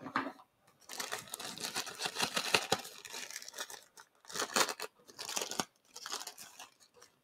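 Clear plastic packaging bag crinkling and rustling in irregular bursts as it is handled and pulled open.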